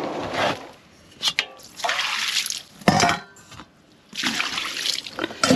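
Stale water tipped out of a stainless steel dog water bowl, splashing onto tarmac in several separate pours. There is a sharp metallic knock from the bowl a little under three seconds in.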